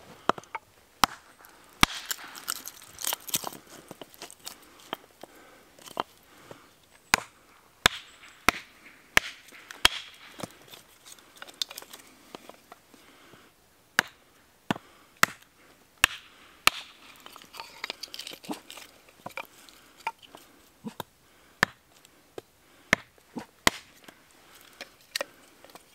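Hatchet chopping a short log on a wooden chopping block, splitting off kindling: dozens of sharp chops at an uneven pace, some close together in pairs.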